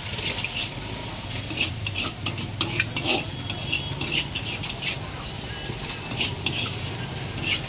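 Chowmein noodles being stir-fried in a large hammered metal wok: a metal spatula scrapes and clanks against the pan in quick, irregular strokes over a steady sizzle.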